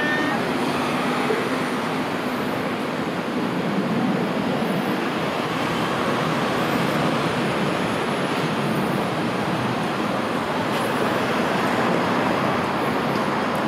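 Steady city street traffic: a continuous wash of road noise from passing vehicles.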